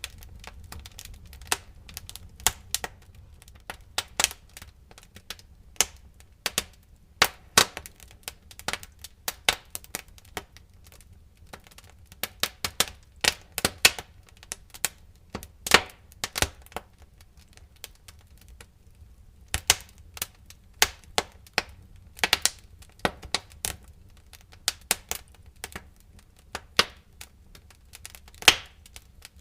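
Wood fire crackling: irregular sharp pops and snaps, some in quick clusters, over a faint low rumble of the flames.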